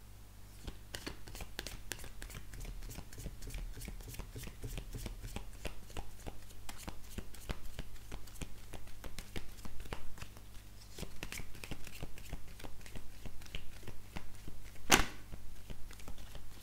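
A deck of oracle cards being shuffled by hand: a rapid run of soft card clicks and slaps, easing off briefly past the middle, with one louder slap near the end.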